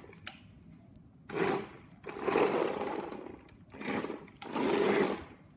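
Remote-control toy stunt car's small electric motors whirring in four short bursts, each a second or less, as it is driven in spurts across a wooden floor.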